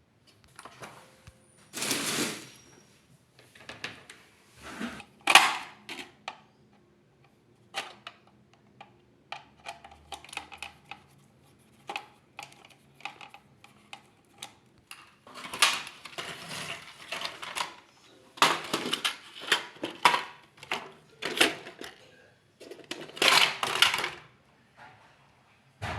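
Hands working on a washing machine's plastic control-panel parts: irregular clicks, knocks and small clatters, with longer spells of scraping or rubbing in the second half.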